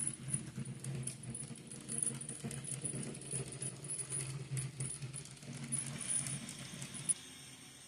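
HO-scale model train of tank cars rolling along the track: small metal wheels clicking and rattling over the rails over a steady low hum. It cuts off abruptly about seven seconds in.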